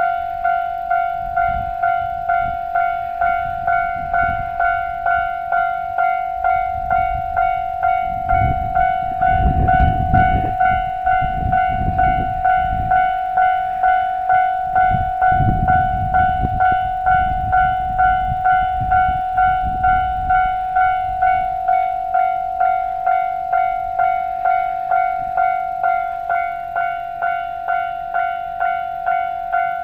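Japanese level crossing's warning bell ringing steadily, a pulsed electronic tone repeating about twice a second, signalling that the crossing is closed. The low running noise of a train swells under it twice, about 8 and 15 seconds in.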